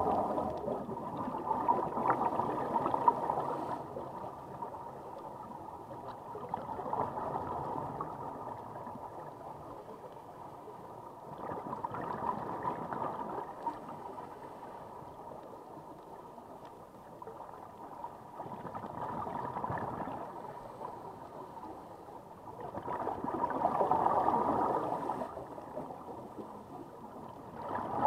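Scuba regulator exhaust bubbles gurgling underwater, swelling in bursts every four to six seconds with each exhaled breath and dying down in between.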